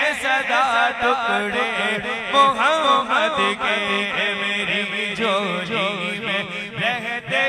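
Male voice singing a naat through a microphone and PA, in long ornamented phrases with a wavering pitch, over a steady low drone.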